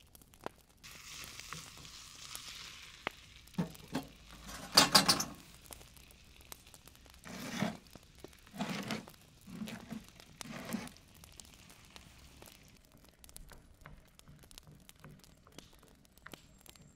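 Cooking at a wood-fired stove: food sizzling in a frying pan with a short hiss, then metal clatters and scrapes of cookware, the sharpest about five seconds in, and a few heavier knocks and scrapes as a baking tray is handled in the stove's oven.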